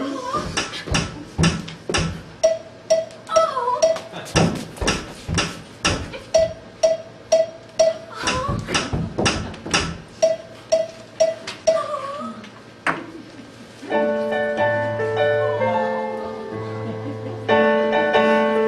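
Show-band underscore: a high note pipped in quick groups of four over sharp, regular knocking hits. About fourteen seconds in it gives way to held keyboard chords over a low bass.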